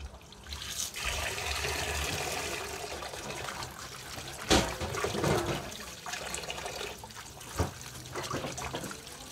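Tap water running into a plastic bowl of lettuce while hands swish and splash the leaves to rinse them. Two sharp knocks stand out, about four and a half and seven and a half seconds in.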